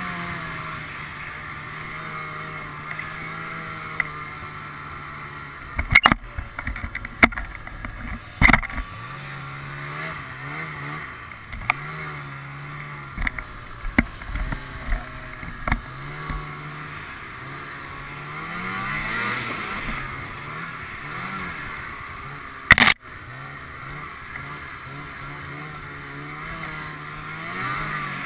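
Ski-Doo snowmobile engine running under a changing throttle, its pitch rising and falling. Several sharp knocks come from about six to eight seconds in, with a louder one near the end.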